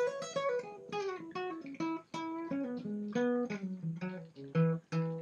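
Intro music: a plucked acoustic guitar playing a melody of single picked notes, each struck sharply and left to ring.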